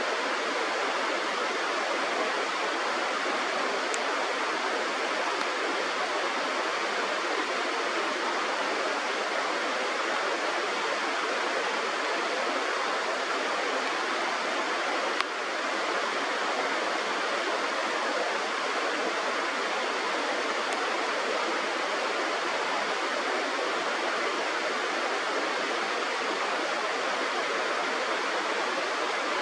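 Steady rush of flowing river water, with a single sharp click about halfway through.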